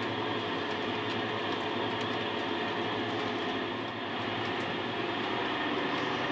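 A model railway train running on the layout's track: a steady mechanical hum with several constant tones, and now and then a faint light click.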